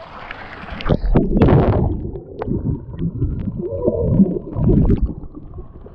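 Swimming-pool water splashing loudly as the camera is plunged under, over the first two seconds. It then turns to muffled underwater bubbling and rumbling around the submerged camera.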